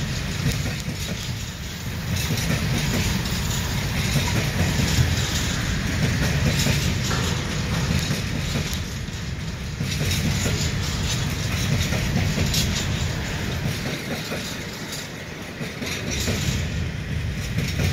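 Freight train rolling past after a standing start: a steady rumble of wagon wheels on the rails, with scattered clicks.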